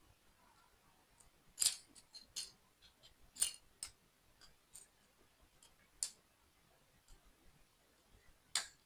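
Sharp clicks and taps of small plastic building-block toy parts being handled and pressed together. About seven separate clicks come a second or so apart; the loudest are about a second and a half in and near the end.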